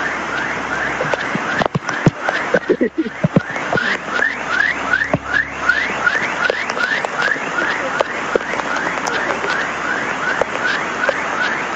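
Floodwater rushing through a street, a steady noisy wash. Over it runs a rapid, even series of short rising chirps, about four a second, with a few sharp knocks in the first few seconds.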